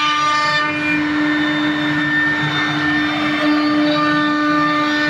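CNC router spindle running and cutting, a steady whine with a rasping cutting noise beneath it.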